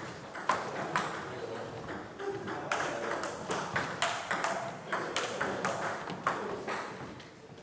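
Table tennis rally: the ball clicking off bats and table in quick, uneven succession, with hall murmur behind.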